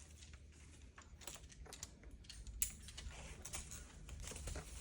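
Faint, irregular light clicks and rustles of climbing rope and gear being handled as slack is paid out for a clip.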